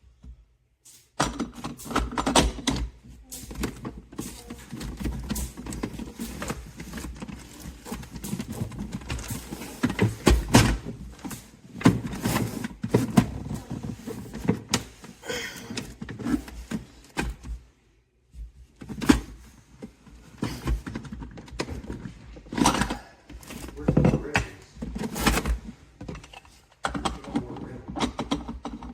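Irregular knocks, taps and clatter of hard objects being handled, with a brief pause about two-thirds of the way through.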